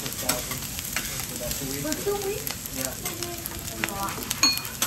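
Rice and egg sizzling on a hot steel teppanyaki griddle, with metal spatulas clicking and scraping against the plate as the rice is turned.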